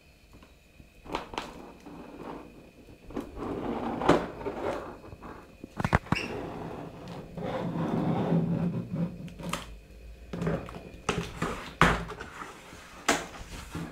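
Cardboard box being slit open along its taped seam with a blade: irregular scraping and rustling of cardboard and tape, with a few sharp knocks as the box is handled, the loudest about 6 and 12 seconds in.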